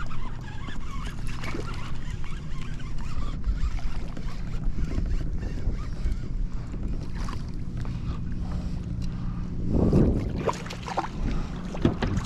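Splashing, knocks and clicks on a kayak while a hooked striped bass is fought alongside, over a steady low rumble. The sound swells louder about ten seconds in.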